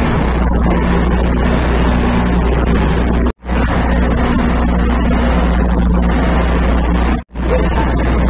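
Boat engine drone heard from inside the cabin of a wooden motorboat under way, loud and steady. The sound cuts out for a moment twice, about three and a half and seven seconds in.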